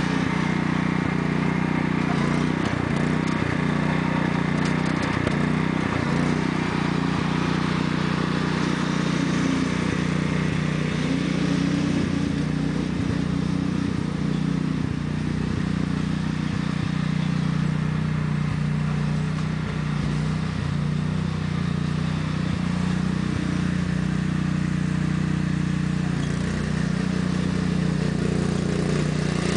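Sears Craftsman lawn tractor's 14 hp Kohler engine running at a steady, unchanging pitch under throttle, with a few short knocks about two to six seconds in.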